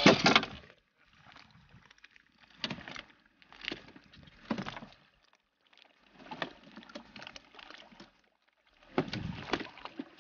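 Short knocks and rattles of fishing gear being handled aboard a small boat, coming in several brief clusters with quiet gaps between.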